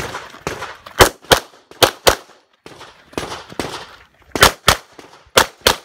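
Pistol shots fired in quick double taps during an IPSC stage: one shot right at the start, then four pairs, each pair about a third of a second apart, two shots on each target. Fainter clatter and noise fill the gaps between the pairs.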